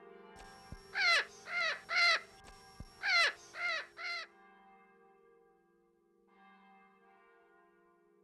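A crow cawing: six caws in two runs of three, each dropping in pitch at the end. Under them is a faint, steady ringing bell tone.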